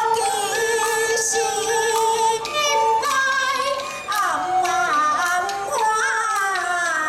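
Taiwanese opera (local koa-a-hi) music: a sung melody with pitch that slides and wavers, over melodic accompaniment.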